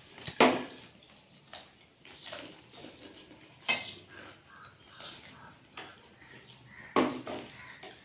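Three sharp clinks and knocks of stainless steel tumblers and plates against the table, a few seconds apart, the middle one with a brief metallic ring. Faint eating noises come between them.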